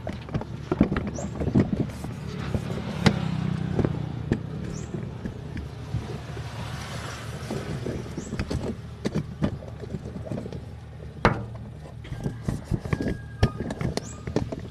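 Scattered knocks and clunks of handling on a truck over a steady low engine drone, with a few short high beeps near the end.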